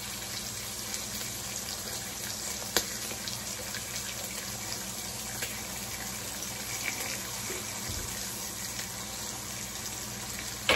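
Bacon frying on a griddle: a steady sizzle with scattered small pops and one sharp crack about three seconds in.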